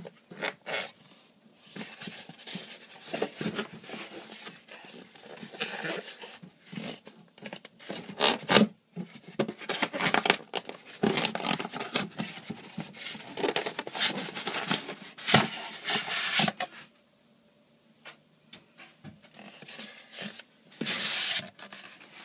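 Foam packing end caps and cardboard box rubbing and scraping against each other as an iMac is worked out of its shipping box: irregular rustling and scraping that stops about 17 seconds in, with one more short scrape near the end.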